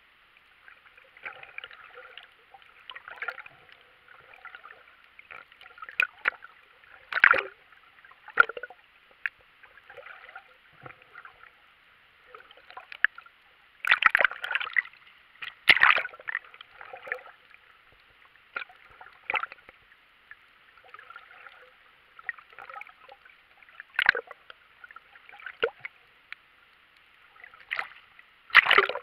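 Muffled underwater water noise heard through a camera's waterproof housing, with irregular gurgles, clicks and knocks. The loudest splash comes near the end as the camera breaks the surface.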